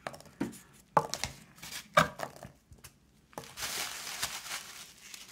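Foam packing peanuts dropped back into a cardboard box by hand: a few light taps and knocks, then a steady rustle of packing material handled in the box from a little past halfway.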